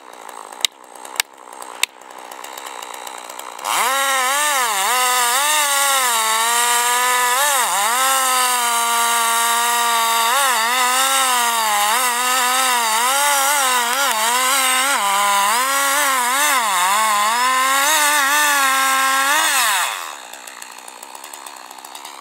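Two-stroke chainsaw at full throttle cutting into a large tree trunk, its engine pitch repeatedly dipping and recovering as the chain bogs in the cut; it stops about 20 seconds in, the pitch falling away. Before it, about three sharp axe knocks in the first two seconds.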